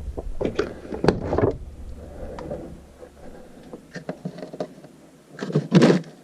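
Knocks and handling clatter in a small room as an RV refrigerator's freezer door is opened, with a louder rustling burst near the end.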